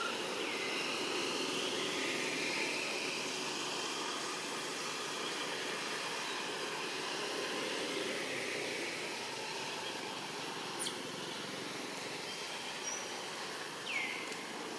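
Steady outdoor background noise, with a few faint high chirps and a short falling squeak near the end.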